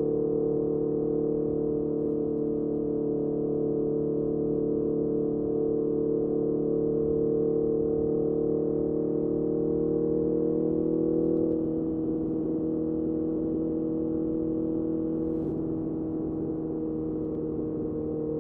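Honda CBR650R inline-four engine running through a MIVV MK3 carbon aftermarket exhaust while riding, with a steady engine note. The note rises a little, then dips slightly in pitch and loudness about eleven seconds in.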